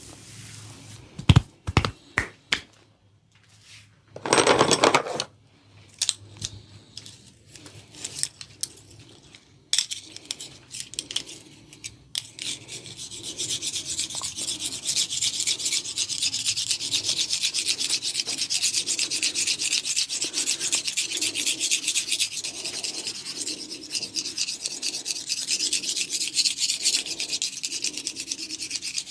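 Barber's hands massaging an oiled head: a few sharp clicks and a loud burst about a second long, then from about twelve seconds in a fast, continuous rubbing of hands working briskly through oiled hair against the scalp.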